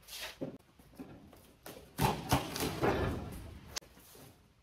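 Parts and packaging being handled: a few knocks and taps with some rustling, the sharpest knock about two seconds in, followed by a short stretch of shuffling and a single click near the end.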